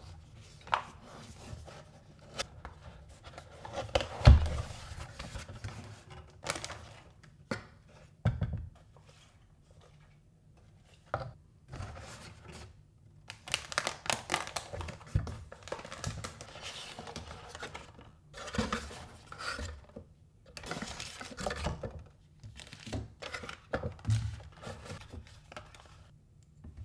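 Packaging of a keyboard kit being handled: plastic crinkling and tearing, with irregular knocks and scrapes, the loudest knock about four seconds in.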